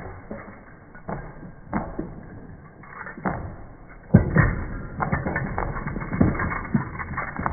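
Great Pyrenees' paws thudding and knocking on a wooden boardwalk as the dog runs up. There are scattered footfalls at first, then a louder, quicker run of thuds about four seconds in as it passes close by.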